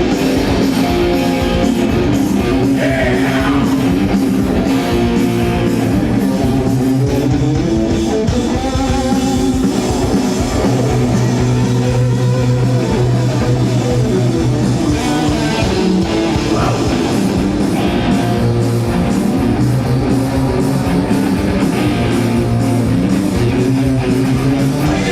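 Hard rock band playing live: distorted electric guitars over bass and drum kit, loud and continuous.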